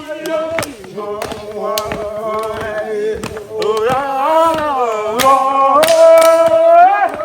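Voices singing in long held and sliding notes, with sharp claps or hits of percussion scattered through; the singing swells and is loudest near the end.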